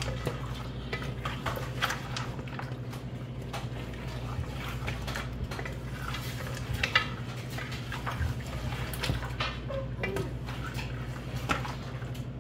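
Spoon stirring and scraping mutton in a hot pot, with irregular clinks against the metal, the sharpest about seven seconds in, over a steady low hum. The meat is being browned in oil with ginger-garlic paste.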